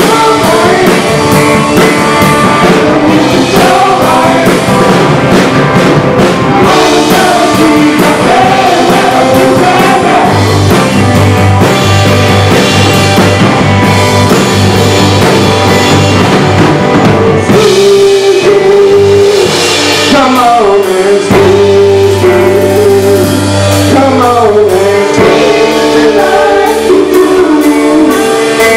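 Live rock band playing: two electric guitars, electric bass and a drum kit, with a sung vocal at times. From about two-thirds of the way in, a bending melodic line stands out over the band.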